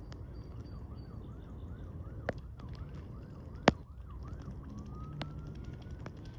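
Faint siren in a fast yelp, about four rises a second, that switches about four seconds in to a slow wail rising and then beginning to fall. Under it runs a steady low rumble, with a couple of sharp clicks about two and three and a half seconds in.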